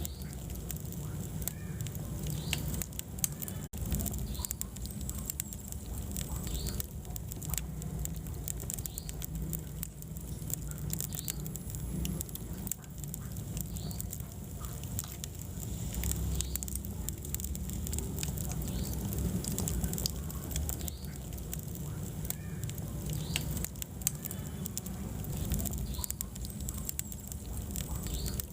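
Wood fire burning in a fireplace: constant crackling with frequent sharp pops over a low, steady rumble of flames.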